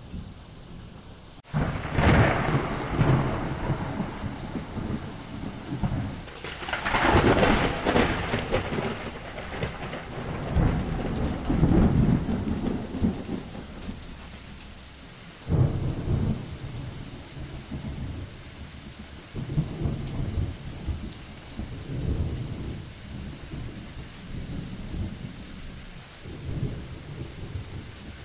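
Steady rain with repeated rolls of thunder. A sudden loud clap comes about a second and a half in, followed by long rumbles that swell and fade. Another sharp clap comes about halfway through, then quieter rumbling.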